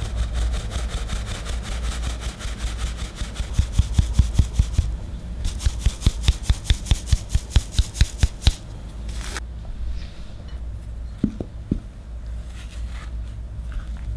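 Fine metal mesh sieve being shaken and tapped to sift flour into a glass bowl, a run of sharp rhythmic taps at about four a second that stops about nine seconds in. Then a spatula scrapes through dry flour in the glass bowl, quieter and uneven, over a steady low hum.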